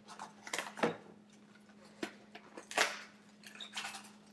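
Small e-cigarette accessories and their packaging being handled: a series of short, irregular clicks and rustles.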